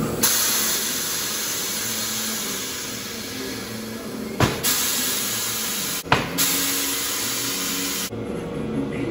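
Loud, steady hiss of compressed air at a tire changer's pneumatic bead breaker as a tire is worked off its wheel. The hiss is broken twice by a brief clunk and stops about eight seconds in.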